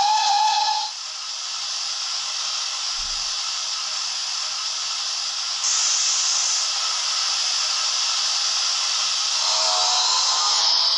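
Steam locomotive sounds from a sound-fitted OO gauge model of an SE&CR C Class: a whistle blast that ends about a second in, then steady steam hiss that gets louder about six seconds in.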